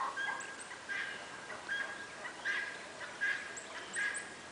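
Farm poultry giving a string of short, high calls, about two a second.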